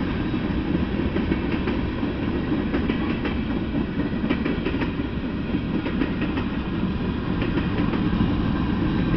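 Freight train of tank cars and covered hopper cars rolling past: a steady low rumble with scattered sharp clicks of the wheels on the rails.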